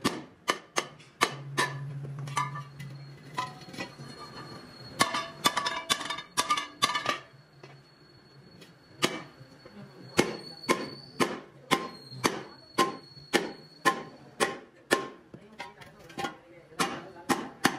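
Hand hammer striking a steel wheel centre disc seated inside a steel wheel rim, the blows used to drive the disc into the rim. There are many sharp, ringing metal-on-metal strikes, roughly one or two a second, with a faster run of blows about five to seven seconds in.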